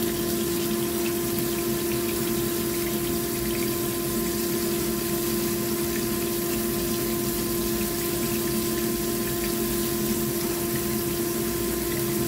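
Cornstarch-coated fish fillet pieces sizzling steadily in hot oil in a frying pan, over a steady low hum.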